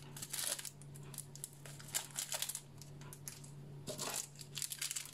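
Small plastic spice packet crinkling and tapping as spice is shaken out of it: a run of faint, irregular clicks and rustles over a steady low hum.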